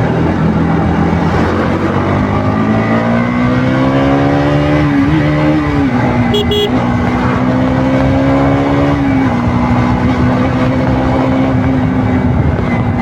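KTM RC 200's single-cylinder engine through its stock exhaust, ridden on the road. The engine note climbs steadily, drops at gear changes about five seconds in and again about nine seconds in, then holds a steady pitch at cruise.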